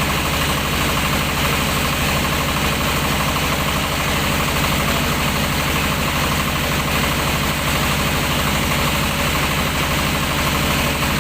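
Engine of a mobile rice-milling machine running steadily, with a fast, even pulse at a constant level.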